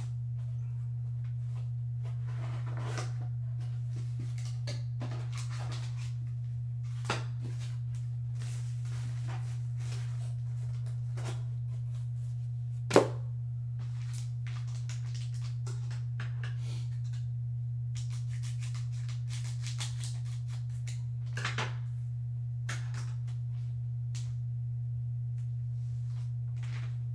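Hands opening a small box and unwrapping a graded card slab from its paper and plastic packaging: scattered rustles and taps, with one sharp knock about 13 seconds in. A steady low hum runs underneath.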